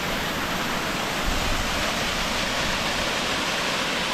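Mountain stream pouring over rocks and down small waterfalls into a pool: a steady rush of falling white water.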